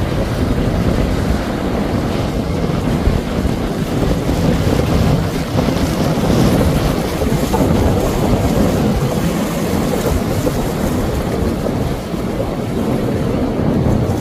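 A Pursuit cabin boat under way at speed, its engine and the wash of its bow wave against choppy water blended into a steady low rumble, with heavy wind noise on the microphone.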